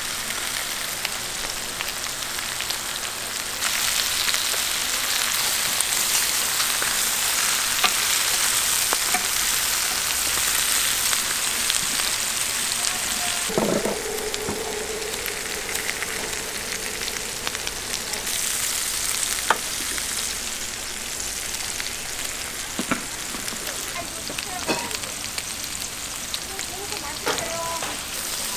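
Pork dorae-chang (mesentery) sizzling as it fries on a hot plate: a steady hiss that grows louder about four seconds in and eases again about halfway through, with scattered sharp clicks and one short ringing tone in the middle.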